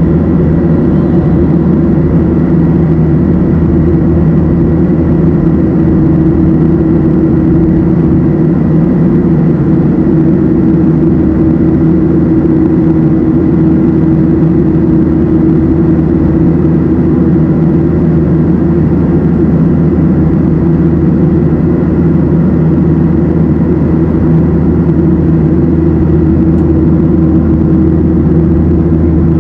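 Cabin noise of a Boeing 737-700 in flight, heard from a window seat beside the engine: the CFM56-7B turbofans and the air rushing past the fuselage make a loud, steady drone with a low hum.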